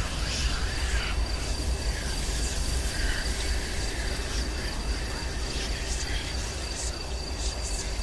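Eerie haunted-house ambience: a steady low rumble under a thin, steady high cricket-like trill, with scattered short chirps and squeaks.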